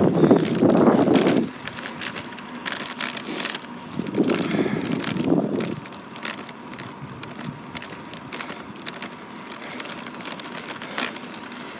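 A bicycle in motion: irregular light clicking and rattling. Two low bursts of wind rumble on the microphone come at the start and again about four seconds in.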